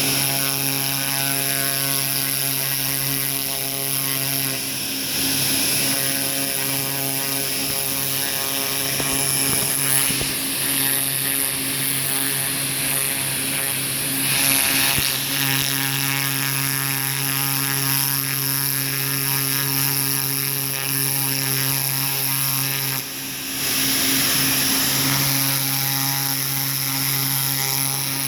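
Pressure washer running steadily, its motor hum under the hiss of the water spray, the sound dipping briefly about three quarters through.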